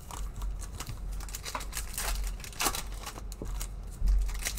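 A foil wrapper on a Prizm basketball card pack being torn open and crinkled by hand, in a run of short crackles. A duller low thump about four seconds in is the loudest moment.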